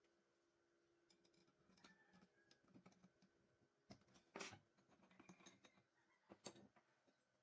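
Near silence with a few faint clicks and light knocks, the clearest about four and a half seconds in and again about two seconds later, as a cutting disc is handled and taken off a motor shaft by hand.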